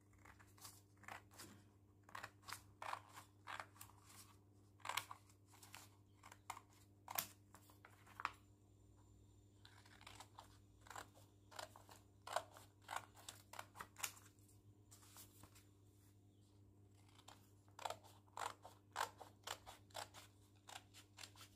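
Scissors cutting along the folds of folded coloured A4 paper: runs of short crisp snips, pausing a couple of times between cuts.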